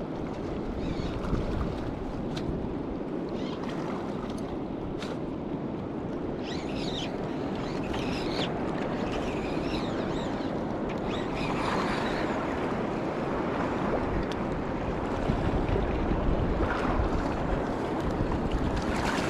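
Steady rushing of river water with wind buffeting the microphone, and a few faint high chirps in the middle.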